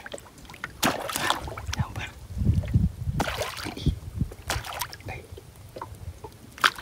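Small, scattered splashes and slaps on the water surface as a live bait fish (seluang) on a short line from a long bamboo pole is dragged and flicked along the bank to lure a predatory snakehead, with a few low bumps near the middle.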